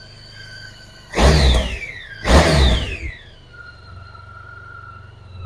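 Edited intro sound effects: a held electronic tone over a low hum, cut by two loud whooshes about a second apart, each sweeping down in pitch.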